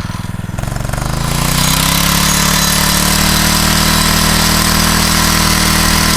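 An engine revving up from a low speed during the first second and a half, then running steadily at high speed.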